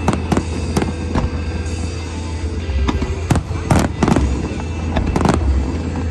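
Aerial fireworks bursting in an irregular string of sharp bangs, some in quick pairs, over music.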